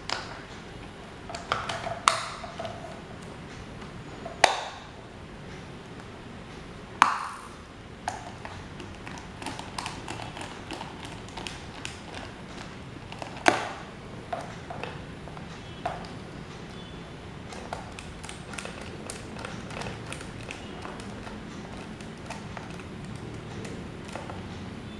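Metal parts being handled and struck with hand tools: a few sharp metallic taps and clinks that ring briefly, then many small light clicks.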